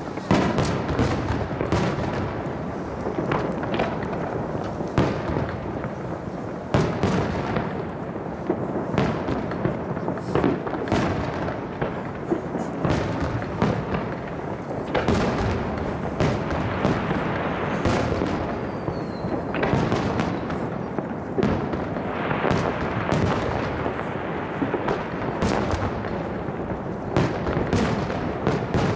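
Aerial firework shells bursting one after another, a dense series of sharp bangs several to the second with no pause.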